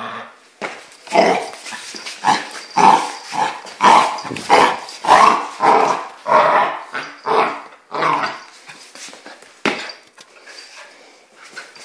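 Puppy growling and barking in play, a quick run of short loud bursts that dies down after about eight seconds.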